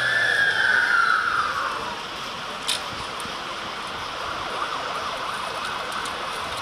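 Ambulance siren wailing: one slow cycle that peaks and falls in pitch, fading out about two seconds in. It gives way to steady street noise with a single sharp click near the middle.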